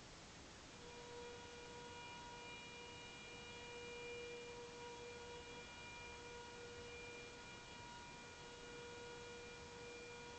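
Faint, steady horn-like drone of unknown origin, one unwavering pitch with overtones, starting about a second in and holding to the end: the strange trumpet-like sound heard in the night sky.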